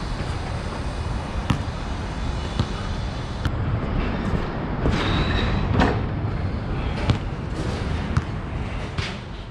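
Nike True Grip basketball bouncing on an outdoor court, a few sharp, irregularly spaced bounces over a steady low background rumble.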